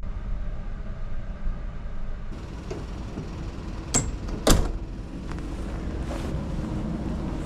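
Steel door of a shipping-container hotel room being pulled shut: two sharp metallic knocks about half a second apart as the handle and latch clack and the door closes, over a steady low rumble.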